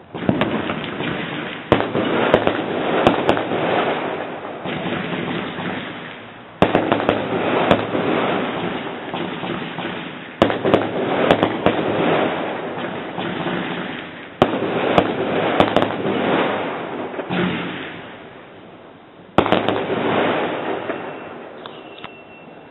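Aerial firework shells bursting: about six sharp bangs, each followed by a dense crackle of many small pops that fades over a few seconds.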